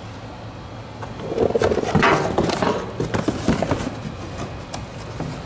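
Cardboard box and bubble-wrap packing rustling and crinkling, with light knocks, as a replacement truck fender is pulled out of it; the crackling starts about a second in and dies away about three seconds later.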